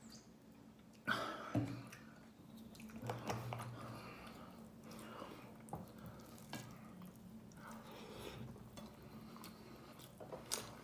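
A couple of sharp knocks about a second in, then the soft clinks and rustle of a hand mixing and scooping rice in a glass bowl, over a low steady hum.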